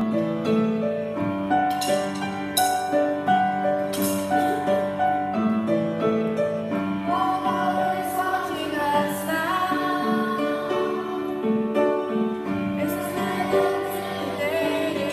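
Upright piano played with both hands in a steady, repeating accompaniment pattern. Singing joins in over the piano about seven seconds in.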